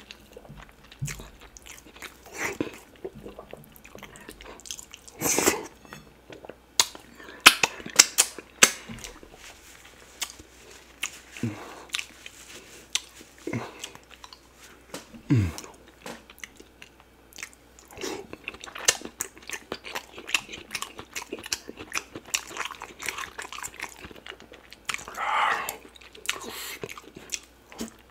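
Close-miked eating of fufu dipped in cocoyam soup with meat: wet chewing and lip smacking, with irregular sharp mouth clicks.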